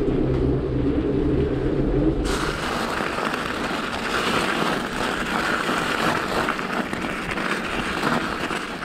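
Mountain bike tyres rolling over the wooden plank floor of a shipping-container tunnel, a low rumble, then from about two seconds in crunching steadily over gravel.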